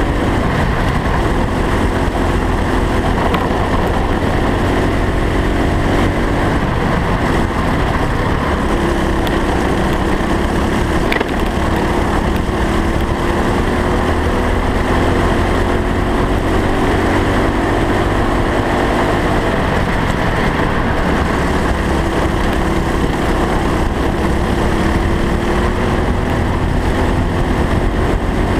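Go-kart engine running at speed, heard from a camera on the kart, its pitch rising and falling slowly as the driver works the throttle through the corners, over a steady heavy low rumble.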